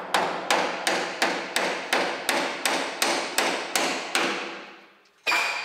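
A hammer striking the underframe of an old double-decker bus body in a steady run of about a dozen blows, roughly three a second, each ringing briefly, stopping about four seconds in. A separate sharp sound comes near the end.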